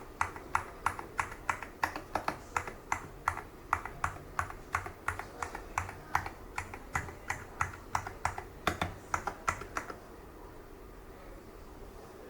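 Keys of a GravaStar Mercury V75 Hall Effect magnetic-switch keyboard being pressed in an even rhythm, about three clicks a second. The clicks stop about ten seconds in.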